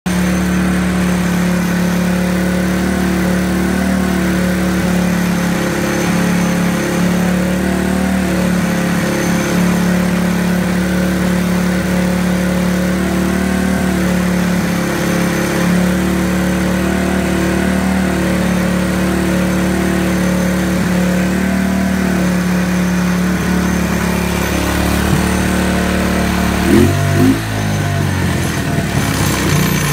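1991 Suzuki King Quad ATV's single-cylinder four-stroke engine idling steadily on its first run after five years in storage, with a quick blip of the throttle near the end.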